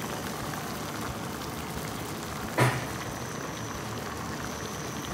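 Pot of squash and shrimp broth with mung beans simmering: a steady bubbling hiss. A single sharp knock sounds about two and a half seconds in.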